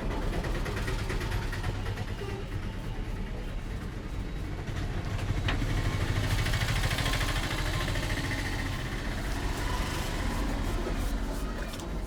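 Hands massaging a head: rubbing and patting on hair and scalp, over a steady low background rumble. There is one sharp click about five seconds in.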